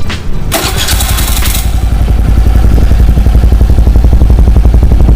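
Suzuki Skydrive Sport scooter's single-cylinder engine starting in the first second or so, then idling steadily with a low, rapid pulsing through a newly fitted Exos X6 aftermarket racing exhaust.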